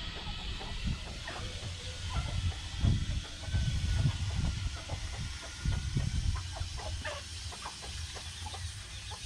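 Domestic village chickens clucking, with many short scattered sounds and a few faint calls. Heavy low rumbling comes in between about three and six seconds in.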